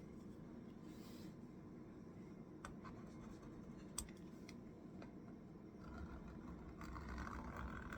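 Faint handling of small computer parts: light scraping and scratching with a few small clicks, one sharper click about four seconds in, and a soft scratchy rustle near the end.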